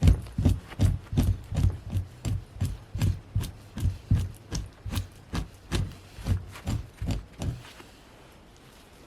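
Rhythmic strokes of a hand tool scraping a hide, about two strokes a second, stopping near the end.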